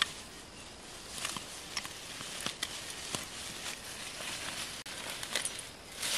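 A hand sickle cutting through leafy plant stems with irregular sharp snaps, over the rustling of foliage as the cut plants are handled.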